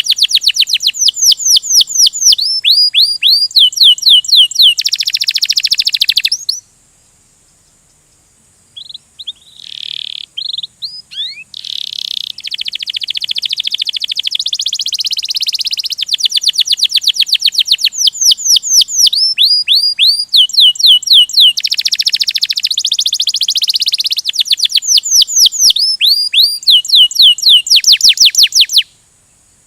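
Domestic canary singing a rolling song: fast trills of quickly falling whistled notes alternating with buzzy rolls. It breaks off for about two seconds a fifth of the way in, resumes with a few short scattered notes, then sings on steadily until it stops just before the end.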